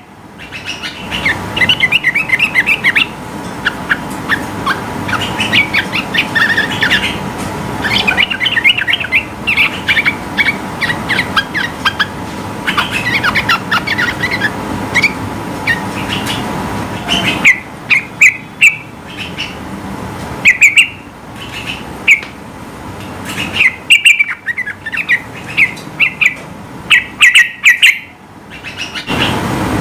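Yellow-vented bulbul (trucukan) singing hard in long runs of quick chirping notes, broken by short pauses, over a faint steady hum.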